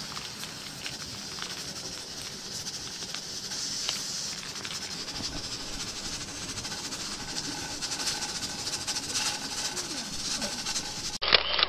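Pressure cooker on a gas camping stove at pressure, steam hissing steadily and its weight valve jiggling in a rapid chatter ('chiki-chiki chaka-chaka'). It is cut off near the end by a short, louder noise.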